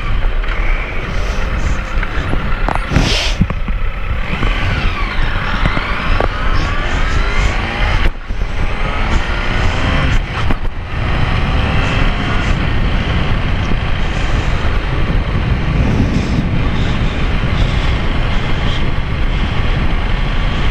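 Sport motorcycle engine pulling away and accelerating through the gears, its pitch climbing and then dropping at gear changes about eight and ten and a half seconds in, then running steadily at cruising speed, with wind rushing over the microphone.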